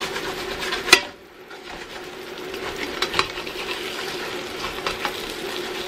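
Floured liver slices sizzling in hot coconut oil in a stainless steel skillet, with a loud sharp clack about a second in and a few lighter taps and scrapes of a spatula against the pan around three seconds in.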